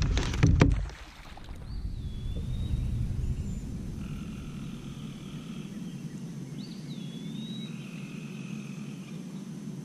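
Lakeside ambience: a bird gives two whistled calls, each a quick rise then a held note, about a second and a half and six and a half seconds in, over a steady low background noise. It opens with a brief burst of loud knocking and rustling, which is handling noise.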